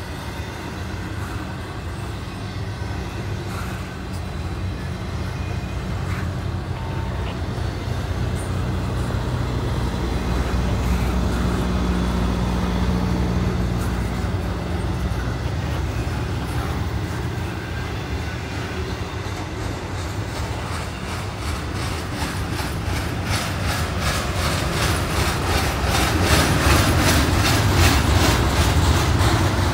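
Intermodal freight cars, container well cars and trailer flatcars, rolling past: a steady rumble of steel wheels on rail that grows louder toward the end.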